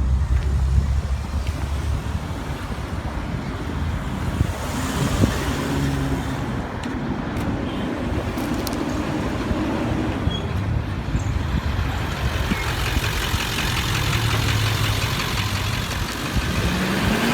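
Road traffic on a highway: car and truck engines running and tyres on the road as vehicles pass, with one passing swell about five seconds in and another, longer one in the second half.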